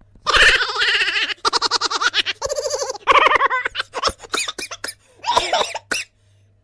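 Comic laughter sound effect: a voice laughing in several bouts of quick pulsing ha-ha sounds, breaking off about six seconds in.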